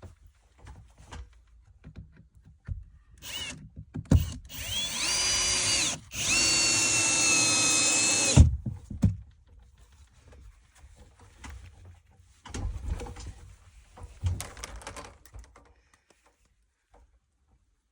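Power drill driving screws into wood framing: a brief whir, then two runs of about two seconds each, the motor spinning up and holding a steady whine before stopping. Quieter knocks and handling of the boards follow.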